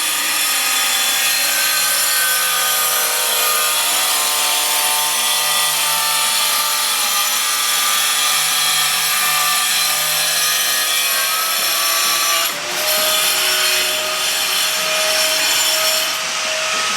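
Electric saw cutting tile in a straight line, a steady loud grinding whine with motor tones. About twelve and a half seconds in, the cutting sound drops away and the motor runs on freely with a steady tone.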